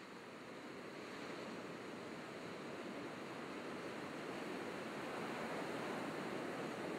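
Steady rushing ambient noise, slowly fading in and getting louder.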